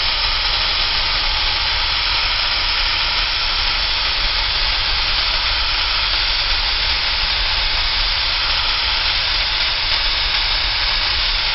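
Corded electric drill boring into a wooden beam at an angle, its motor and bit running steadily without a break.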